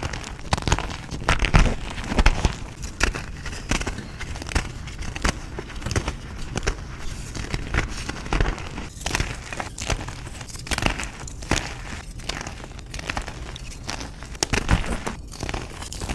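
Reformed gym chalk being crushed and crumbled, a dense run of dry, irregular crunches and crackles.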